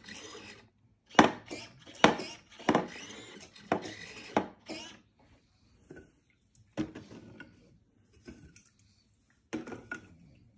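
Small 3D-printed remote-control astromech droid moving in a series of short spurts: bursts of grinding, rasping noise from its small drive motors and plastic parts, each starting with a sharp click, with a quieter pause near the middle.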